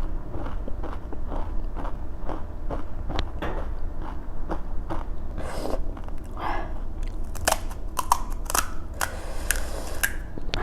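Close-miked chewing of panipuri, with soft regular mouth clicks a couple of times a second. In the last few seconds come louder, crisp crunches as the fried puri shells break.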